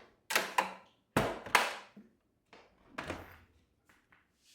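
Ice cubes clattering in the refrigerator's freezer ice bin, a few separate hard knocks over several seconds, each dying away quickly.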